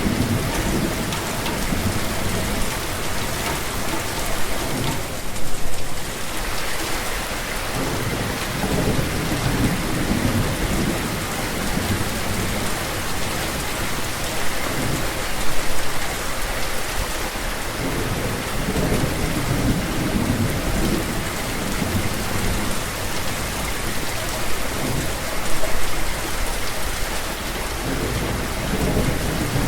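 Steady rain falling, with low thunder rumbling and fading several times.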